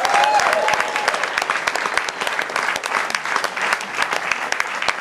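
Audience applauding in a room, many people clapping steadily, with one pair of hands clapping close by.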